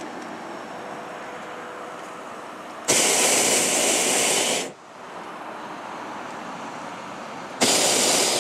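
Hot air balloon's propane burner firing in two sudden blasts: one of nearly two seconds about three seconds in, and a shorter one starting near the end, with a steady low hiss between.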